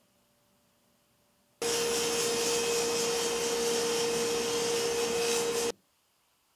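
A stationary woodworking machine running as a walnut board is fed across its table with push blocks: a loud steady rushing noise with one steady tone through it, starting about a second and a half in and stopping abruptly some four seconds later.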